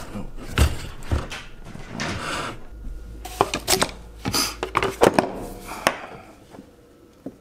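Rummaging through a cardboard box of parts: irregular clicks, knocks and rustling as items are shifted and a coolant temperature sensor in a length of rubber hose is pulled out and handled. The handling noises stop about six seconds in.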